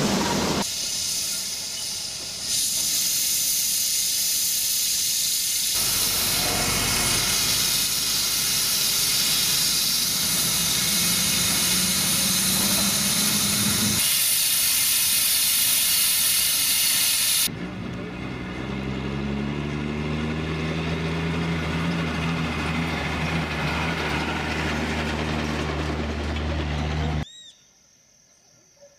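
Steam locomotive hauling a loaded coal train, its cylinders giving off a loud, steady hiss of steam. Later a lower engine sound comes in, slowly rising in pitch, and it cuts off near the end.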